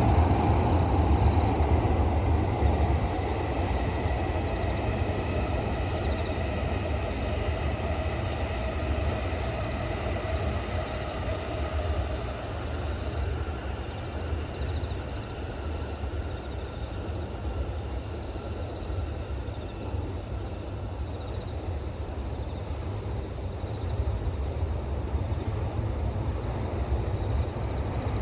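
Train passing and moving away: loudest at the start, easing within the first few seconds into a steady low rumble, with a faint thin whine that dies away over the next several seconds.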